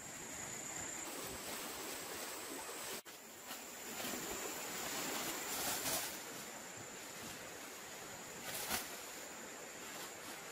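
Rustling and swishing of leafy undergrowth as a long-handled bug net is swept through the bushes, louder in the middle, over a steady high-pitched insect drone.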